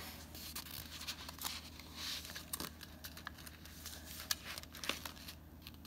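Faint rustling of a sheet of paper being folded and creased by hand into a paper airplane, with a few small ticks as it is pressed flat.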